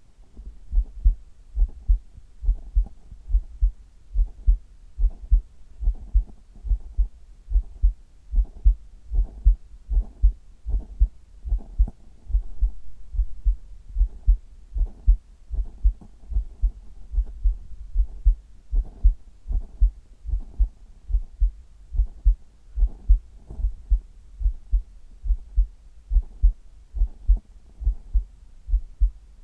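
Human heartbeat picked up at the chest: a steady, even rhythm of deep paired lub-dub thuds over a low background hum. The background rumble swells briefly near the middle.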